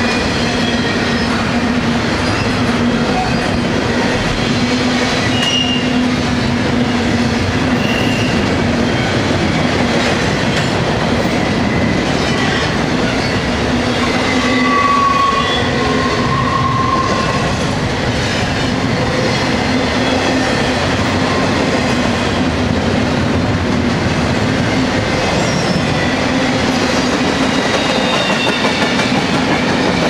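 Double-stack intermodal well cars rolling past on steel rails: a steady rumble and clatter of wheels and trucks, with short high wheel squeals now and then, the most prominent about halfway through.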